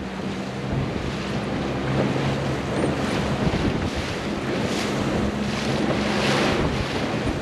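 Wind rushing over the microphone and choppy water splashing around a boat underway, with a steady low engine hum underneath. The splashes swell about once a second in the second half.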